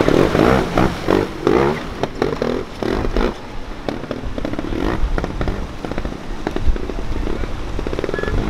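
Trials motorcycle engine revving in short uneven blips, crackling and popping as the bike is ridden over rocks and through shallow water.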